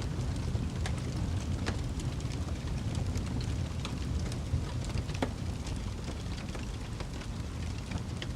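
Fire burning with a steady low rumble and frequent irregular sharp crackles and pops.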